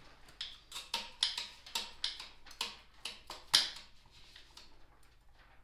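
Manual dual-cartridge dispensing gun clicking as its trigger is pumped, about three to four clicks a second for some three seconds, the last click the loudest. The gun is purging a little polyurethane resin out through the mixing nozzle before injection.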